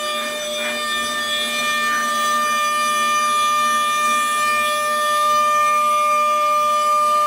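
CNC router spindle running at a steady, unchanging whine while its bit carves a wooden relief panel.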